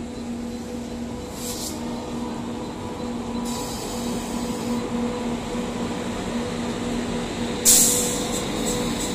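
Electric locomotive rolling slowly past at close range: a steady electric hum over the rumble of wheels on the rails. A sudden loud burst of noise comes near the end.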